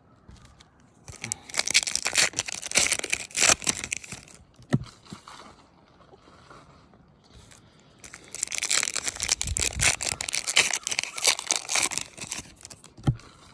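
Trading card pack wrappers being torn open and crinkled, in two bursts of tearing and crackling a few seconds apart.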